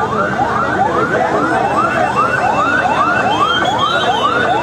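Emergency vehicle siren in fast yelp mode, rising sweeps repeating about three times a second, over the steady noise of a large crowd. A fainter second wailing tone comes in higher up around the middle.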